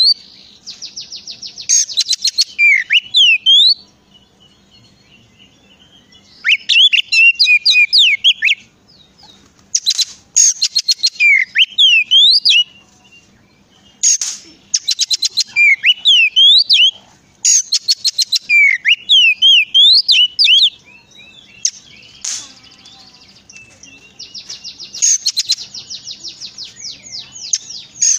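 Oriental magpie-robin (kacer) singing loudly in phrases a few seconds long: fast runs of repeated notes mixed with rising and falling whistles, with short pauses between phrases and a longer lull a little after the middle.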